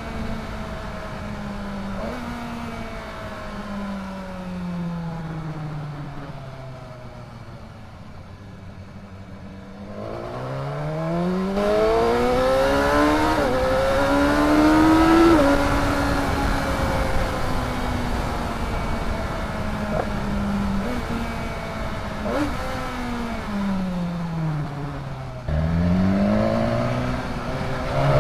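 BMW S 1000 XR motorcycle's inline-four engine and exhaust under way. The engine note falls as it slows, climbs steeply as it accelerates hard about ten seconds in, holds, then drops and picks up again near the end.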